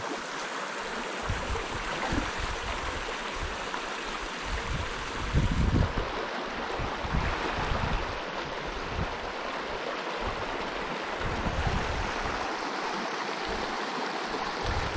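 Shallow mountain stream running over rocks, a steady rush of water. Low rumbles come and go beneath it, the loudest about five and a half seconds in.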